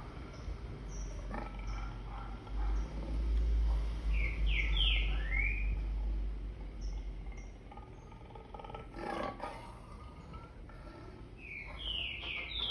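A lion roaring, played back from a recording, loudest from about two and a half to six and a half seconds in. Short runs of three bird chirps come about four and a half seconds in and again near the end.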